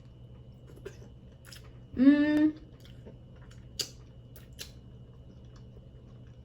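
A woman's short voiced hum, rising then held, about two seconds in, with a few faint clicks of eating around it.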